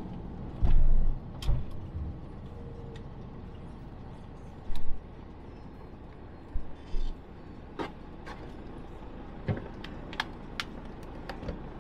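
Motorhome engine running low and steady in the cab, with a few heavy thumps in the first half and a scatter of sharp clicks and knocks in the second half.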